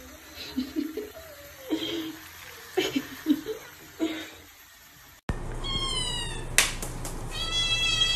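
A wet kitten under a running tap gives a string of short, low mews. About five seconds in, a tabby kitten meows much louder: a short rising call, then one long, wavering, high-pitched meow.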